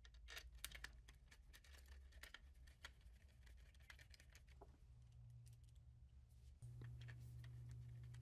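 Faint, irregular clicks of a screwdriver working the mounting screws of a direct-drive sewing-machine motor, over a low steady hum. Near the end the clicks stop and only the hum remains.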